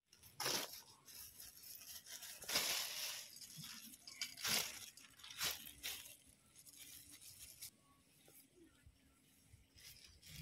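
A plastic carry bag rustling and crinkling in several short bursts as raw prawns are shaken out of it onto a steel plate, growing fainter after about six seconds.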